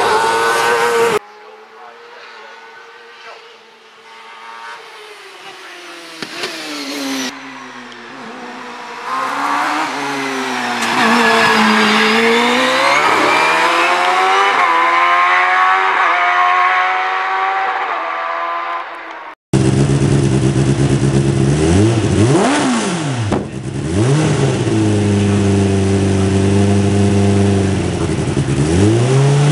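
Single-seater hill-climb racing cars at full throttle. After an abrupt cut about a second in, a car is heard faintly at first and grows loud as it accelerates up through the gears, its pitch dropping at each change. After a second cut about two-thirds of the way through, a car on the start line revs its engine up and down hard.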